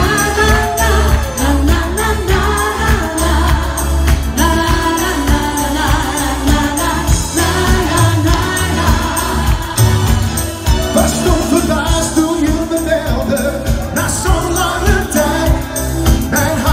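A man and a woman singing a pop duet into handheld microphones over an amplified backing track with a steady beat. The woman sings around the middle, and the man takes the lead near the end.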